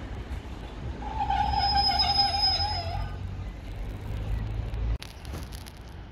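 A diesel train's horn sounds one long, slightly wavering note for about two seconds, over a low rumble that cuts off suddenly about five seconds in.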